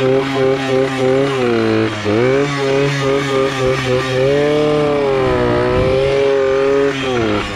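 Pit bike's small single-cylinder engine revving hard, its pitch sagging and climbing again several times, while the rear tyre spins up in a smoky burnout.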